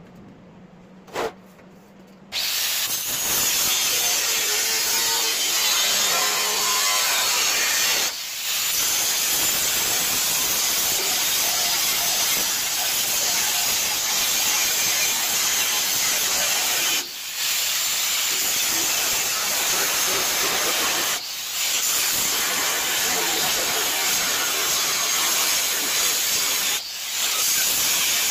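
Angle grinder cutting into the rusted sheet-steel deck of a mini lawn tractor mower. It starts up suddenly about two seconds in and runs loud and steady, dipping briefly four times.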